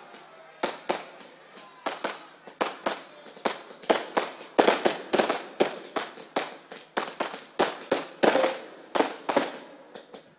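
Fireworks display: a rapid, irregular string of sharp bangs from shells launching and bursting. The bangs start sparse, then come several a second and get louder after about four seconds, easing off just before the end.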